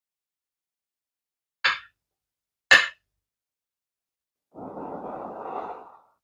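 Metal spoon clinking twice against a plate, then about a second and a half of breath blown over a spoonful of hot food to cool it.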